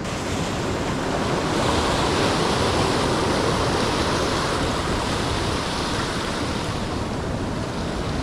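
Ocean surf breaking and washing over the rocks just below, a steady rushing that swells about two seconds in and eases a little toward the end.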